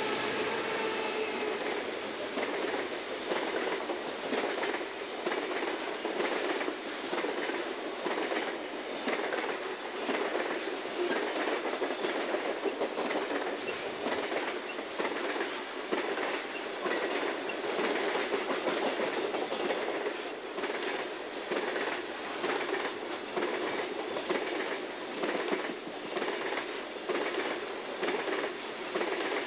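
Coal hopper cars of a long freight train rolling past close by: a steady rumble of steel wheels on rail, with rhythmic clickety-clack as the wheels cross rail joints.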